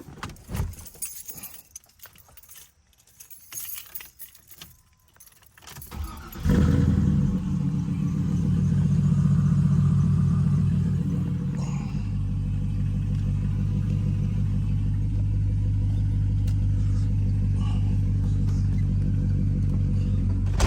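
Keys and small clicks, then about six seconds in the 1985 Monte Carlo SS's swapped-in 5.3-litre LS V8 starts with a sudden burst. It runs at raised revs for a few seconds and settles into a steady idle about halfway through.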